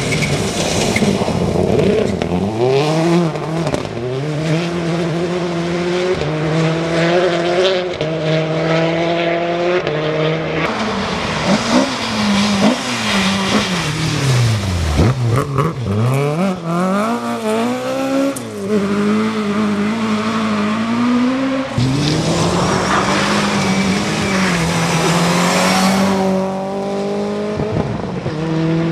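Rally cars driven flat out on a gravel stage, one after another: engines rev hard and climb through the gears with repeated drops in pitch at each shift. About halfway through, one car passes by, its pitch falling as it goes. A constant hiss of tyres on loose gravel runs underneath.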